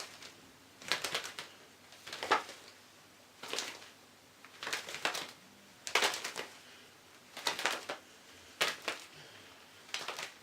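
Pair of leather gloves flapped together as a Foley imitation of pigeon wings flapping. There are about eight short flurries of quick slaps, roughly one every second and a quarter.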